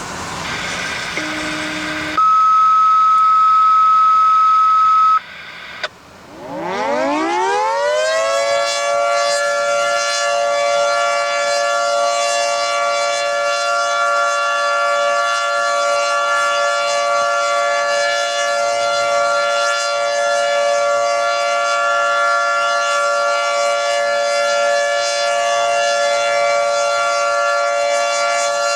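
A loud, steady beep tone for about three seconds. Then, about six seconds in, a Federal 3T22 outdoor warning siren winds up from a low growl to full pitch within a couple of seconds and holds a steady chord-like wail, heard from inside a car.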